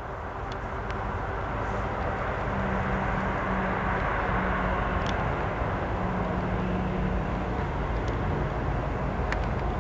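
Union Pacific diesel locomotives leading a freight train approach, their engines running with a steady low rumble and a held hum that grows a little louder. A few faint clicks sound over the top.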